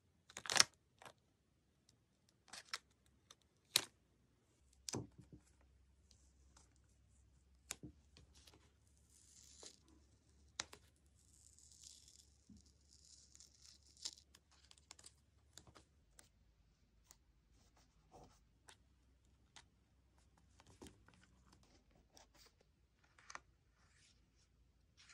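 A few sharp scissor snips through a paper sticker sheet in the first five seconds, then soft peeling and rustling of paper stickers laid onto a journal page, with scattered light taps and clicks.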